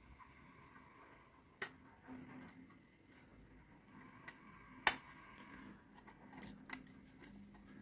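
Lock pick and tension tool working the pins of a Stalf cross-keyway garage lock: light, scattered metallic clicks and scrapes at irregular intervals, the sharpest click about five seconds in.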